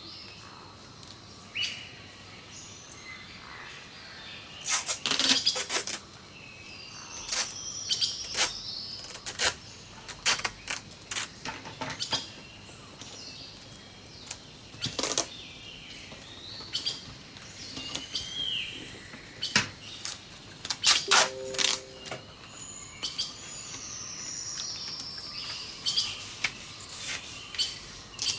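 Songbirds chirping and whistling throughout, with repeated bursts of sharp crackling and clicks from clear adhesive tape being pulled off the roll and torn.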